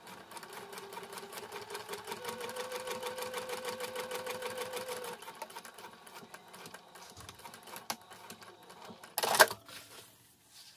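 Domestic sewing machine stitching through cork fabric: a fast, even needle clatter with a steady motor hum for about five seconds, then slower and quieter stitching. A brief loud mechanical noise comes near the end.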